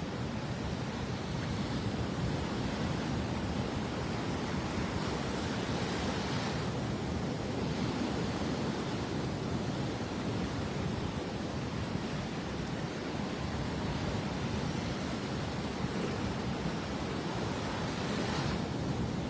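Surf breaking on the beach, a steady rushing noise, with waves swelling louder about six seconds in and again near the end.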